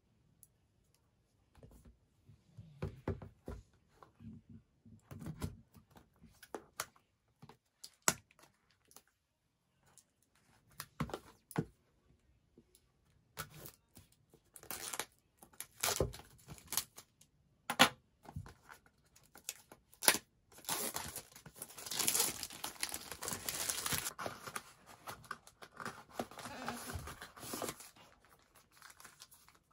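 Hands unwrapping and opening a cardboard product box: scattered taps and scratches on the packaging, then a long stretch of tearing and crinkling of the plastic wrap and box from about two-thirds in.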